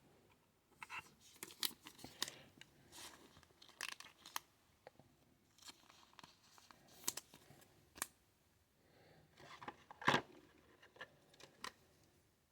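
Trading cards being handled: faint, scattered rustles, slides and clicks of card stock and plastic, with a few sharper clicks about seven and ten seconds in.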